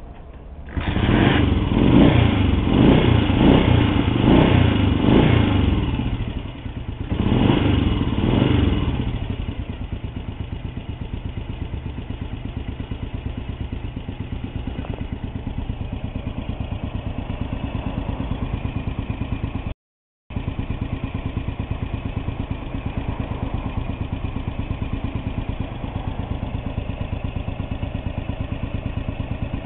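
1964 Kawasaki Meguro SG250's 249 cc single-cylinder OHV four-stroke engine catching about a second in and being revved for several seconds. It dips, is revved once more, then settles into a steady idle with an even beat.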